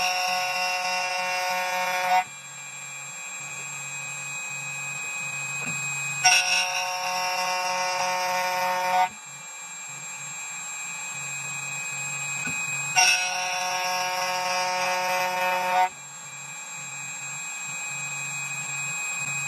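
2M2 Tank 2 Pro CNC key cutting machine milling a copper blank: a loud, high whine of the cutter in the metal for about three seconds at a time, about every seven seconds, with the spindle running more quietly between passes.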